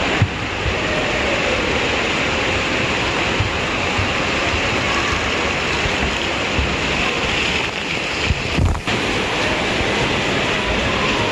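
Steady, loud rushing of water, with a few low thumps on the microphone, the loudest about eight and a half seconds in.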